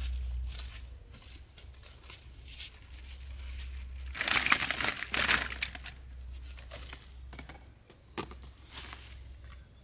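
Rustling and crinkling of something being handled, loudest in a stretch about four to five and a half seconds in, with scattered clicks, over a faint steady high-pitched tone and a low rumble.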